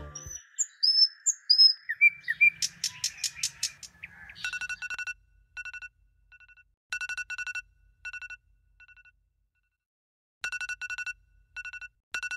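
A few bird chirps, then a quick run of loud sharp notes, then an electronic alarm beeping from about four seconds in. The alarm sounds in fast bursts of same-pitch beeps with short pauses and one longer gap between them.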